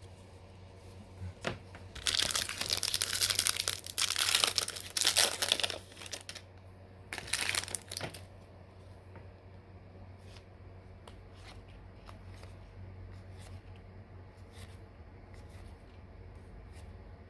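A baseball card pack's foil wrapper being torn open and crinkled, in one long spell of about four seconds and then a shorter one about a second later. After that come faint light ticks of cards being handled.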